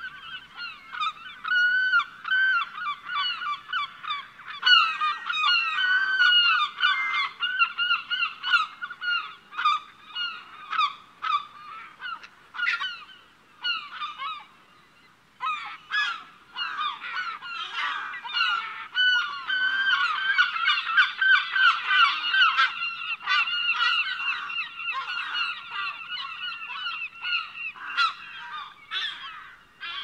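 A flock of birds calling continuously, many short, overlapping pitched calls, with a brief lull about halfway through.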